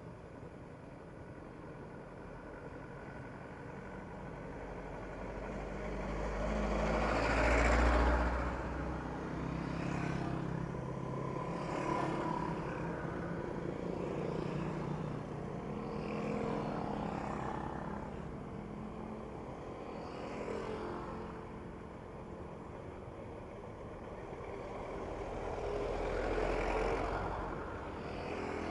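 Road vehicles passing one after another at close range, each swelling up and fading away; the loudest passes about a quarter of the way in, and another comes near the end.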